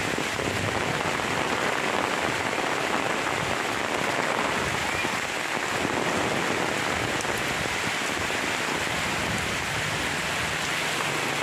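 Steady rain falling on coconut palms and wet ground.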